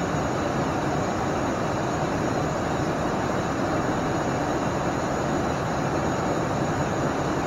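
Steady cockpit noise of an ATR 42-500 turboprop airliner in flight: engine and propeller noise mixed with airflow, holding even throughout with no changes.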